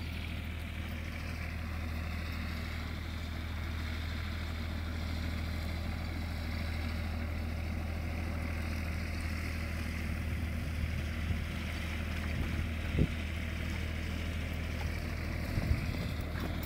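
Steady low drone of a running motor-vehicle engine, with a couple of brief knocks about two-thirds of the way through and near the end.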